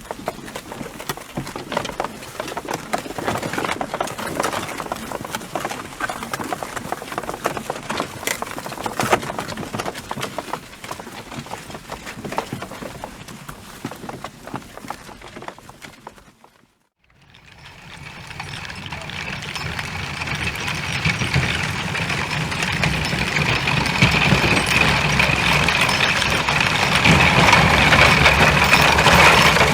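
Horse hooves beating quickly on the ground in a dense run of strikes, which stops about sixteen seconds in. After a brief silence, a different steady rumbling sound with a high held tone fades in and grows louder.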